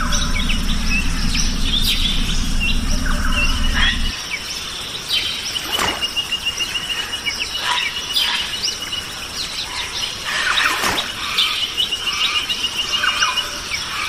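Tropical forest soundscape of many birds chirping and calling, with a rapid, even trill repeating twice. A low rumble sits under the first few seconds and cuts off abruptly.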